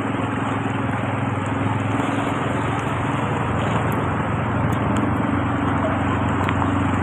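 Vehicle engine running steadily while driving, a constant hum with road noise.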